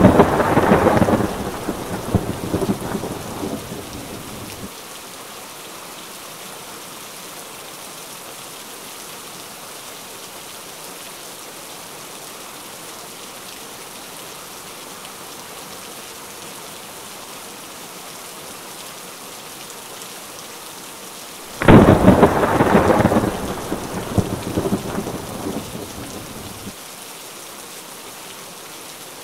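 Two rolls of thunder over steady rain. Each starts suddenly and rumbles away over about five seconds, the first at the start and the second about twenty seconds later.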